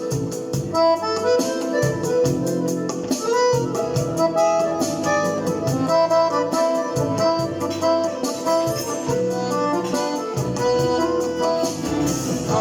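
Accordion playing a melody over a MIDI backing track with a steady drum beat and bass.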